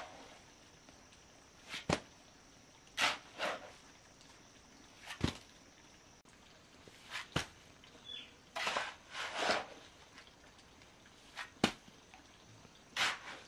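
Metal shovel scraping and scooping wet cement mortar on packed dirt, a sharp scrape or knock every second or two, with a longer run of scraping about two-thirds of the way through.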